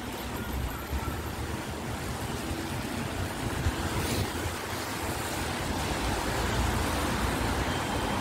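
Wind buffeting a phone's microphone outdoors: a steady rushing noise with a low rumble, growing a little louder about halfway through.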